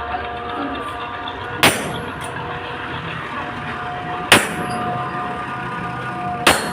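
Three sharp metal clangs, about two seconds apart, each with a short ring, over a steady tone in the background.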